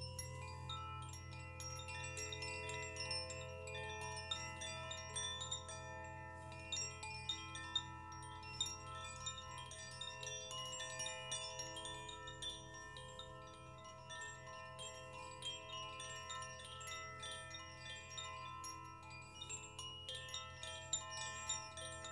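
Metal wind chimes jingling: many small strikes set off overlapping bell-like tones that ring on and blend, over a steady low hum.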